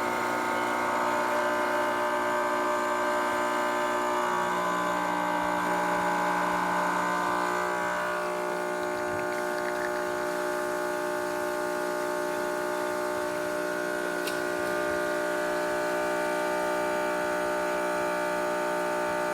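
Quick Mill Andreja espresso machine's vibratory pump buzzing steadily while pulling a test shot after a tune-up. Its tone shifts about four seconds in and again about eight seconds in.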